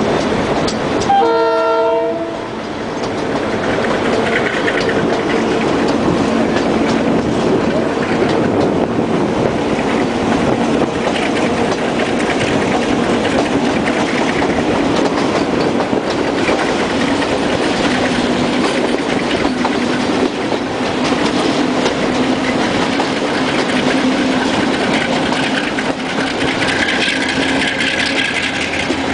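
Diesel-hauled commuter train on the move, heard from a carriage window: a short horn blast about a second in, then the steady rumble and clatter of the wheels on the rails with the diesel locomotive working.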